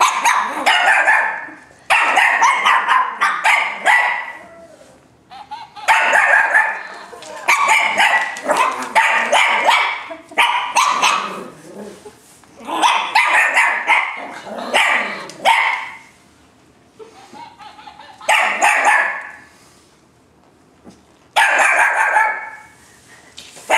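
Shih Tzu puppies barking in repeated quick runs of high yaps, about eight bursts with short pauses between them.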